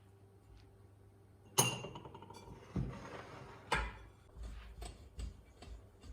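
Kitchenware handled while making dough: a sharp, ringing clink about one and a half seconds in, then two duller thumps and several light knocks.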